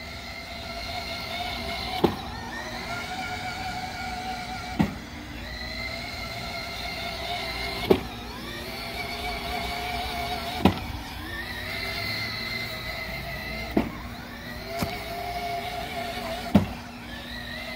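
Ride-on toy car's 12-volt electric drive motor and gearbox whining. About every three seconds there is a sharp click of the 5-volt relay reversing the motor's polarity as the ultrasonic sensor detects the obstacle. After each click the whine glides back up to a steady pitch as the car changes direction.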